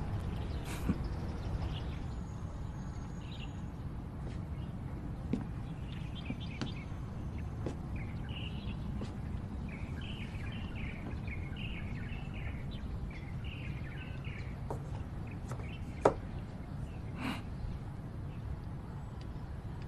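Steady low outdoor background noise with small birds chirping in a quick run through the middle. A few sharp clicks, one loud one about three quarters of the way through.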